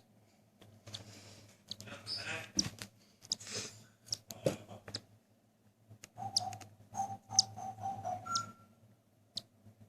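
Cockatiel chick begging to be fed: a string of short, hoarse calls in bursts, then a few short held calls near the end, with light clicks between them.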